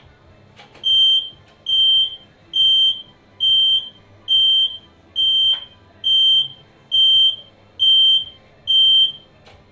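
Electronic warning beeper of an industrial X-ray unit sounding ten high-pitched beeps, each about half a second long, a little under a second apart, the kind of signal that warns that the X-ray tube is powering up or exposing.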